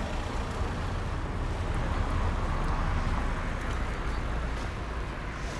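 Road traffic going by: a steady low rumble of engines and tyre noise, swelling slightly as a vehicle passes about two seconds in.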